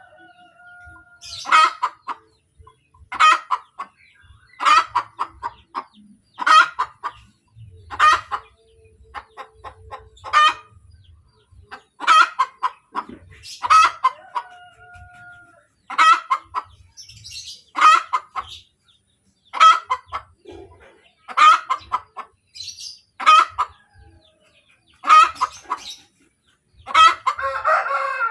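Hen cackling after laying an egg: loud, harsh calls repeated about every second and a half to two seconds.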